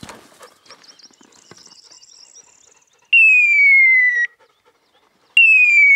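Hunting dog's beeper collar sounding its point-mode tone, which signals that the setter is holding a point on partridges. There are two long, loud, falling electronic tones, each a little over a second, about two seconds apart, and each cuts off suddenly.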